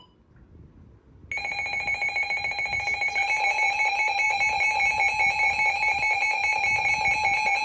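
Emergency Alert System two-tone attention signal: a loud, steady, harsh electronic alarm tone that starts suddenly about a second and a half in, after a brief pause, and holds unbroken.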